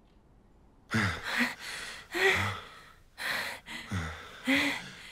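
A couple's breathy gasps and sighs, about four in a row roughly a second apart, starting about a second in after a near-quiet moment.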